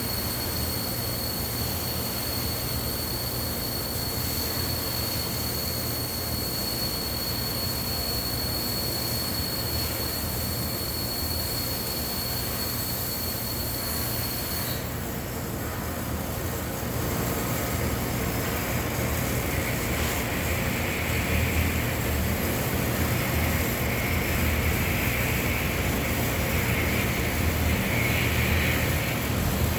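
Steady mechanical hum and hiss inside a steel vessel, with a high whine that cuts off about halfway; after that a pulsed MIG welding arc buzzes and the sound grows louder.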